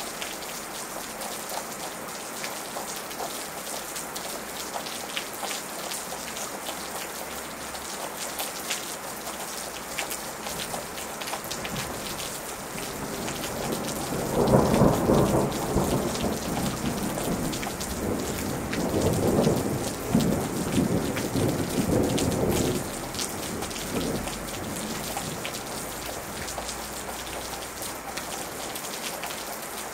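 Steady rain falling, with a long roll of thunder that builds about twelve seconds in, is loudest a couple of seconds later, swells again, and rumbles away after about ten seconds, leaving the rain.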